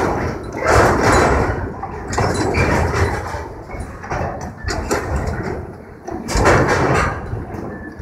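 Excavator's hydraulic demolition shear crushing and tearing scrap metal, making grinding, scraping bursts that are loudest about a second in and again late on, over the low running of the excavator's engine.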